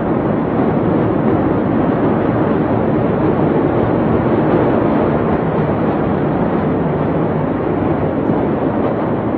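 Steady, loud rushing roar with no distinct bangs or voices.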